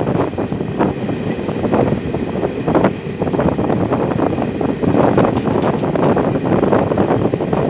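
Wind buffeting the microphone over the running rumble of a passenger train at speed, with irregular gusty thumps.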